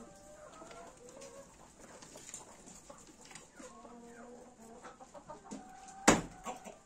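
Chickens clucking, a string of short calls, with one sharp knock near the end that is the loudest sound.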